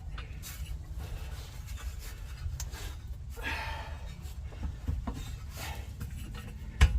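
Hand work fitting a part: light rubbing and scraping with scattered clicks, a longer scrape about three and a half seconds in, and a sharp knock at the very end.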